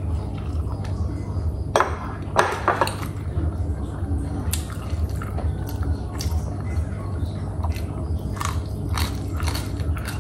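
A person eating: wet chewing and mouth sounds with scattered short clicks, the loudest cluster about two to three seconds in, over a steady low hum.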